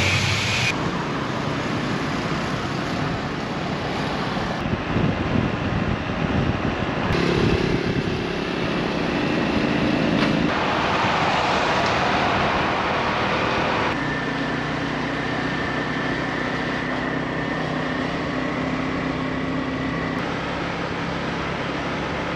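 Road noise from a small 125cc scooter under way: wind on the microphone and the engine running. The sound changes abruptly several times, as separate riding shots are cut together.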